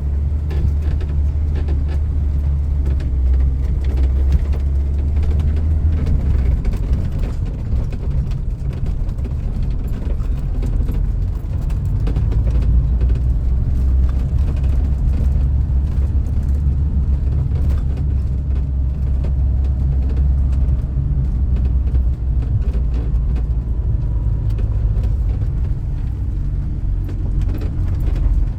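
Motor vehicle driving: a steady, loud low rumble of engine and road noise that keeps on evenly, with small knocks and rattles here and there.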